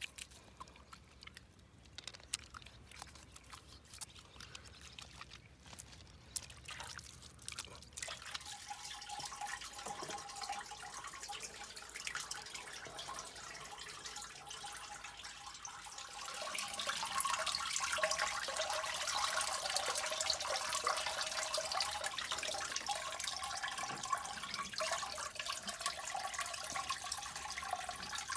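Whey dripping and splashing as hands gather fresh cheese curds in it. About halfway through it turns into a louder, steady trickle of whey draining through a cheesecloth.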